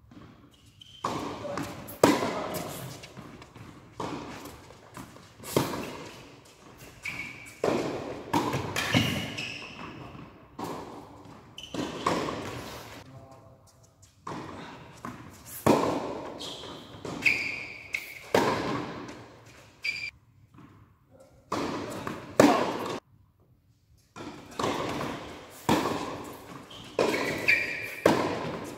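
Tennis rally on an indoor hard court: racket strikes on the ball and ball bounces, about one every second, echoing in a large hall, with short high shoe squeaks. A brief lull between points falls about two-thirds of the way through.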